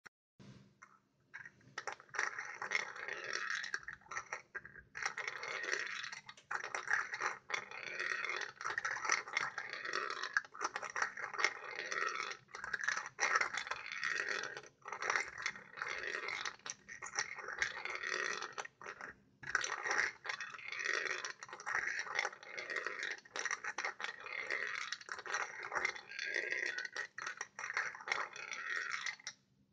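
8 mm steel balls rattling and clicking through a small 3D-printed plastic marble run as its screw lift is turned by hand, a continuous clatter of rolling balls and plastic-on-steel clicks with a couple of brief pauses.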